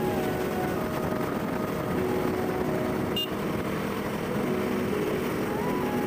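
Road and wind noise from a moving vehicle, with background music on top: held notes that step from pitch to pitch. There is a brief click about three seconds in.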